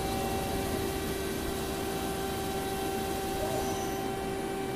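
CNC lathe running idle after a cut: a steady machine hum with a constant tone.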